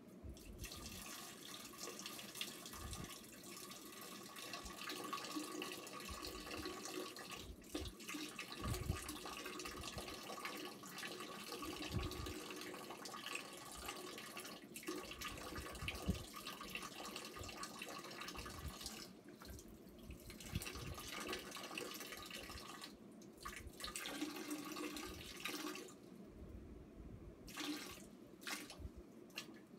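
A long stream of urine splashing into toilet water, running steadily for most of the time with a couple of brief breaks, then dwindling to short spurts near the end.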